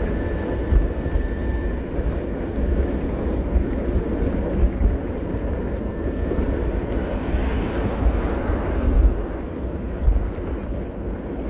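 Wind buffeting the microphone of a camera carried on a moving bicycle: a steady, gusty low rumble.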